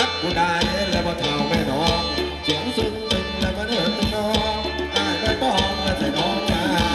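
Thai ramwong dance music played by a band: a steady drum beat under a wavering melody line.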